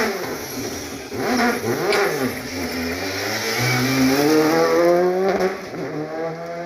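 Rally car engine revving hard. Its pitch swings up and down for the first two seconds, then climbs steadily as the car accelerates away, dropping at a gear change about five and a half seconds in.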